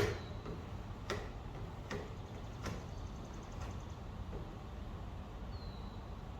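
A run of sharp ticks or taps, the first the loudest, then fainter ones about once a second, over a steady low background hum.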